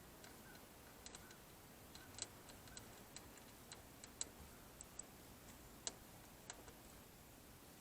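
Near silence broken by faint, light clicks and taps, about a dozen, irregularly spaced: small metal parts or tools being handled.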